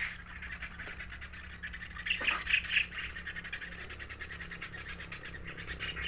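Caged white-throated kingfishers chattering: a fast rattle of short calls, loudest for a moment about two seconds in.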